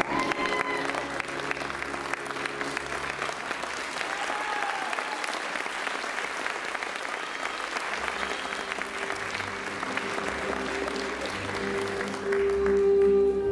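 Audience applauding steadily. Music comes back in under the clapping in the second half and grows louder near the end.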